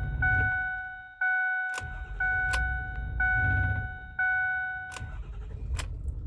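Ford Super Duty's in-cab warning chime dinging about once a second, six times, then stopping, over the low rumble of the 6.4 Power Stroke diesel engine, with a few sharp clicks from the key and cab controls.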